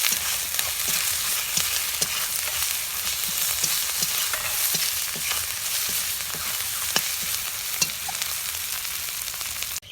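Ground spices and paste sizzling in hot oil in a kadai, a steady hiss with scattered sharp ticks from a spatula stirring and scraping the pan. The sizzle cuts off suddenly near the end.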